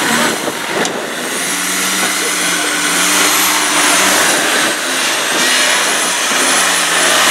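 Land Rover Defender's diesel engine revving hard and unevenly under load as it climbs out of deep mud, with a thin high whistle that rises and falls with the revs.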